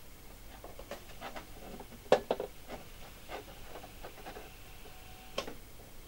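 Light clicks and rustles from handling the plastic housing, heating element and wiring of a disassembled hair dryer, with a sharper click about two seconds in and another near the end.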